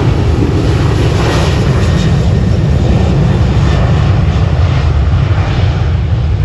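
Jet airliner departing under takeoff power: a loud, steady, deep engine rumble.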